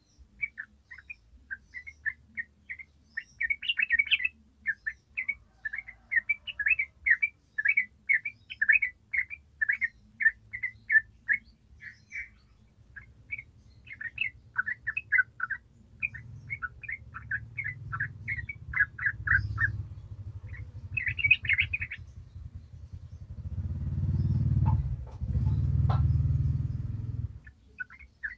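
Yellow-vented bulbul singing a long, rapid run of short chirping notes (the 'ropel' song) that breaks off a little over two-thirds of the way in. A low rumble builds from about halfway and is loudest near the end, after the song stops.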